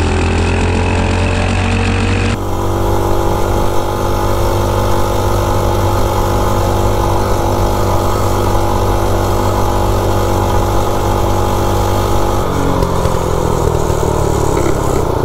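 Mini bike's Predator-based single-cylinder four-stroke engine running flat out at its top speed, pretty much maxed out on its low 6.25 gearing. It holds a steady high drone with wind rushing over the microphone. Near the end the pitch falls as the bike slows.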